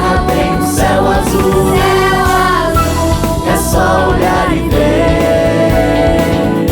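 Choir singing with band accompaniment in a live performance, several voices holding and gliding between notes over a steady bass.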